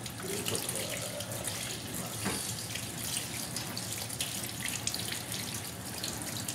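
Tap water running steadily into a stainless steel sink, splashing irregularly over hands and forearms as soap lather is rinsed off.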